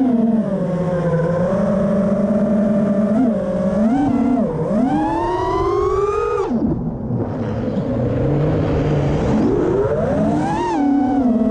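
FPV racing quadcopter's brushless motors (Hobbywing XRotor 2207) spinning Ethix S3 props, a high whine that rises and falls with throttle. Near the middle the pitch drops sharply as the throttle is cut during a flip, then it climbs back up as power returns.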